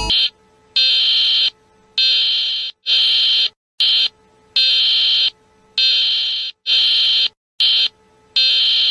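High-pitched, buzzy emergency-alert alarm tone beeping on and off in a repeating pattern of three long beeps, each about three quarters of a second, followed by one short beep.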